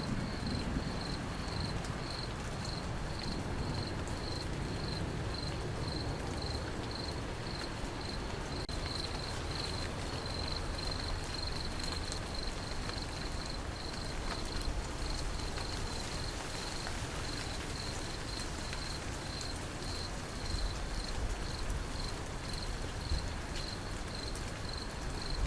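Steady rain falling, with a low rumble underneath. Over it a cricket chirps in an even, rapid pulse, about three chirps a second.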